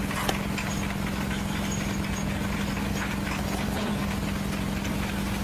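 An engine running steadily at a constant speed, with a held hum and a low rumble beneath it.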